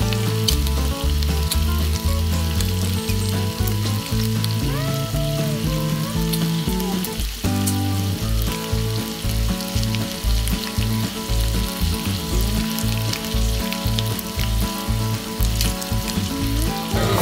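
Chive pancake batter frying in an oiled pan over a gas flame, a steady sizzle with frequent small crackles. Background music with a steady beat plays underneath.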